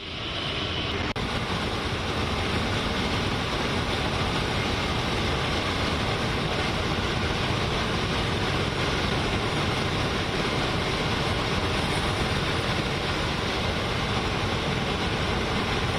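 Steady engine roar, even in level and unbroken throughout.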